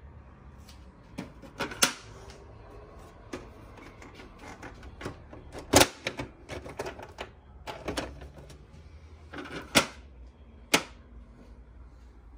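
A hand handling the hard plastic casing of a Dell C1760nw colour laser printer, making irregular sharp clicks and knocks. The loudest comes just under six seconds in, with others near two, ten and eleven seconds in.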